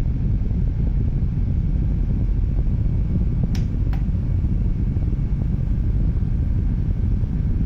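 Small rechargeable USB desk fan running, its air stream rushing steadily onto the microphone with a low rumble.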